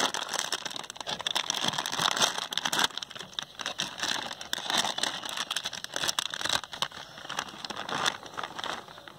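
Plastic snack packet crinkling and crackling as it is handled and torn open by hand. The crinkling is busiest in the first three seconds, then comes in sparser crackles.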